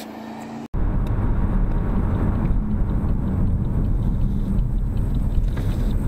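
Steady low rumble of a Chevrolet Camaro driving, engine and road noise recorded by a dashcam inside the car. It starts abruptly just under a second in, after a brief, quieter stretch.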